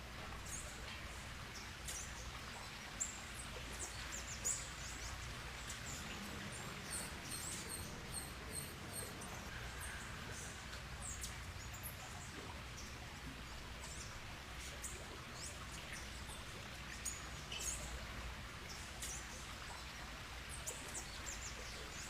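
Pet birds chirping: many short, high-pitched calls scattered throughout, over a steady low hum.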